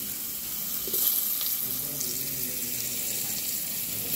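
Finely chopped roasted onion sizzling in a pan of hot oil and roasted spices: a steady hiss, with a louder burst about a second in.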